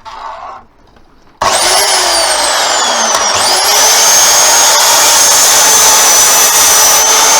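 Power saw cutting a section off a pole: it starts abruptly about a second and a half in, and its whine drops in pitch for about two seconds, then rises and holds steady at a high pitch while it keeps cutting. A brief handling sound comes right at the start.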